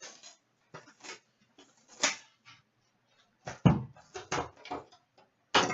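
Trading-card boxes and their packaging being handled and opened by hand: a string of short, irregular rustles and knocks, with a heavier thump a little after the middle.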